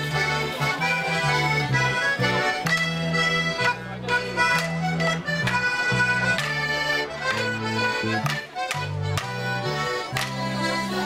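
Band playing a border morris dance tune: accordion carrying the melody over electric bass guitar notes, with sharp percussive knocks on the beat.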